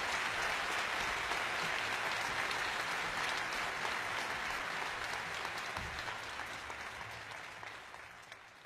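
Audience applauding at the end of a talk, dense clapping that fades away over the last few seconds.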